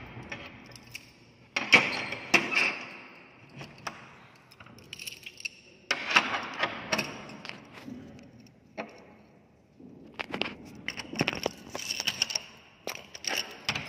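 Metal door bolt, hasp and padlock on a wooden door clicking and rattling, with keys clinking, as the door is locked. The clicks and rattles come in three spells.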